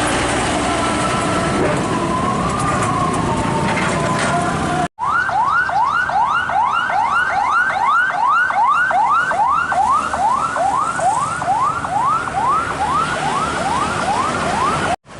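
Heavy vehicle and road noise, then, after a sudden cut about five seconds in, an electronic siren yelping: a fast rising wail repeated about twice a second for about ten seconds, ending at another abrupt cut.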